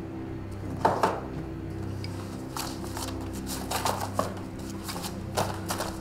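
Paper rustling as a paper file is handled and its pages turned, the loudest rustle about a second in, over steady background music.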